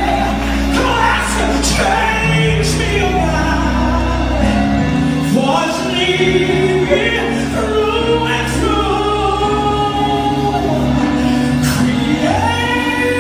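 A woman singing a gospel song live through a microphone, holding long, bending notes, with keyboard and guitar accompaniment underneath.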